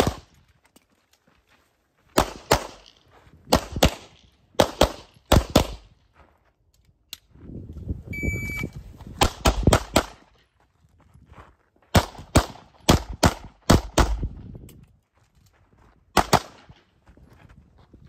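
CZ Shadow 2 pistol fired rapidly in an IPSC stage: about twenty sharp shots, mostly in quick pairs a fraction of a second apart, in bursts separated by pauses of one to two seconds. A rumbling stretch of movement noise runs under the shots around the middle, and a brief ringing tone sounds just before the middle burst.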